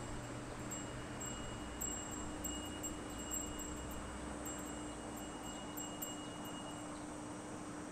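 Insects chirping in a steady high-pitched trill with quick repeated ticks, over the low hum of a small moat sightseeing boat's motor.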